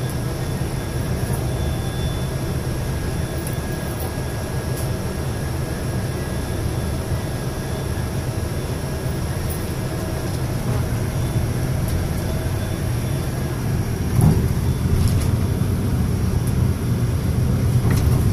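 A tour coach in motion, heard from inside the cabin: a steady low engine hum and road noise, with a few light clicks. The loudest click comes about fourteen seconds in.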